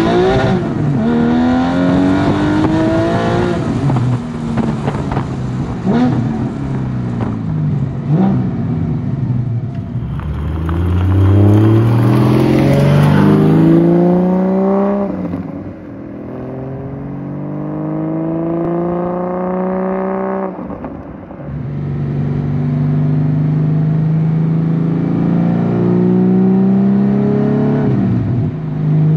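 Porsche 718 GT4's 4.0-litre flat-six through an aftermarket race exhaust and headers, accelerating hard with rising revs and several upshifts where the pitch drops back, then running more steadily near the end. It is heard partly from inside the cabin and partly from outside as the car pulls away.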